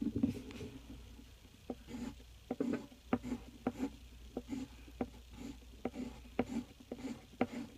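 Quick short strokes of a drawing tool on paper, about two a second, as short whisker lines are drawn.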